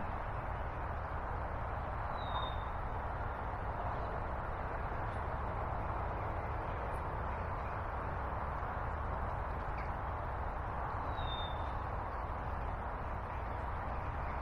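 Steady rush of flowing river water. A bird gives a short, high call twice, about two seconds in and again near eleven seconds.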